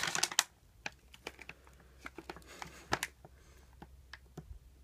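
Handling noise: a short rustle right at the start, then a run of faint, irregular light clicks and taps.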